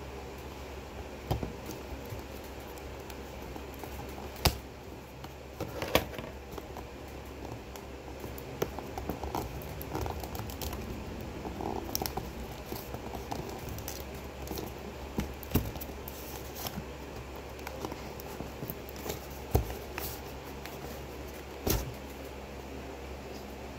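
Hands handling and working open a cardboard webcam retail box: scattered sharp knocks and taps, about ten of them, with light scraping and crackling between, over a steady low hum.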